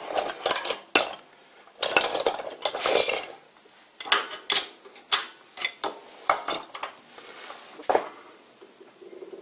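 Irregular clusters of sharp metal-on-metal clinks, rattles and scrapes from steel tools being handled at the lathe, as the Morse taper reamer is about to be taken out of the tailstock quill. There is a last single clink near the end.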